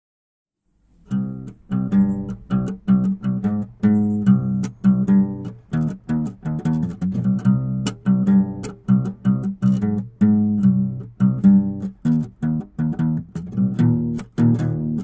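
Background music of plucked guitar notes in a quick, steady rhythm, starting about a second in after a moment of silence.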